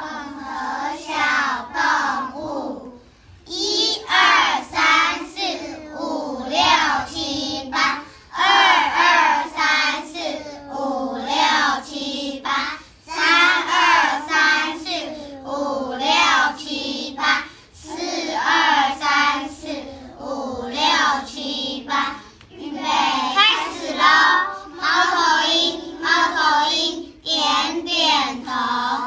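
Young children singing a warm-up exercise song, phrase after phrase with short breaks between them.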